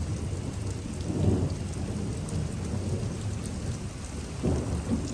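Thunder rumbling over steady rain during a severe thunderstorm, the rumble swelling about a second in and again near the end.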